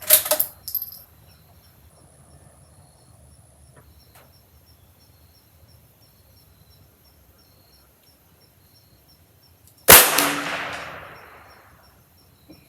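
A single .22 LR shot from a Ruger Precision Rimfire bolt-action rifle about ten seconds in: a sharp crack that trails off over a couple of seconds. It is a sighter shot to check the rifle's zero.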